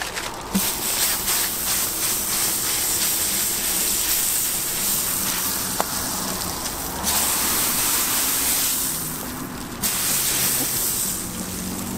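Melted fat sizzling on a hot flat-top griddle as slices of white bread are laid into it: a steady hiss that starts suddenly about half a second in, grows louder in the middle and eases off near the end.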